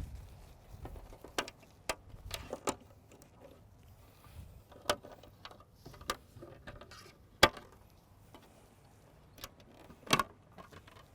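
Scattered sharp clicks and knocks of hardware being handled while a portable satellite terminal is taken apart, about eight in all at uneven intervals, one louder knock about two-thirds of the way in.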